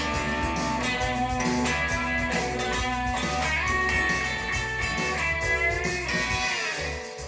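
Thinline electric guitar played through a Peavey amplifier: blues-style lead lines with string bends, dying away near the end.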